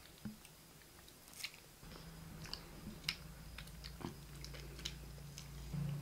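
Children biting and chewing steam-roasted beef chops on the bone: irregular wet smacks and small clicks of the mouth. A low steady hum comes in about two seconds in.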